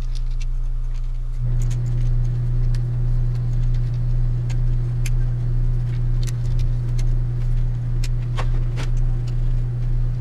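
A steady low hum that steps up in loudness about a second and a half in, under scattered light clicks and taps from the plastic case and internal parts of a boombox being handled and fitted back together.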